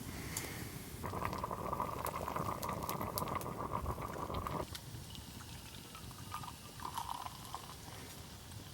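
Liquid being poured in a steady gurgling stream that starts about a second in and stops abruptly about three and a half seconds later, followed by a couple of short splashes.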